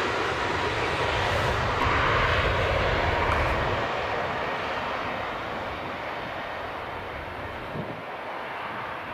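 Twin-engine jet airliner's engines at takeoff power as it begins its takeoff roll: a loud, steady rush of jet noise that peaks about two to three seconds in, then fades as the aircraft accelerates away down the runway.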